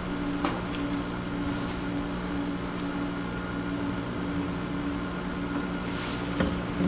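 Steady low electrical or ventilation hum, two low tones held throughout, with a faint click about half a second in and another near the end.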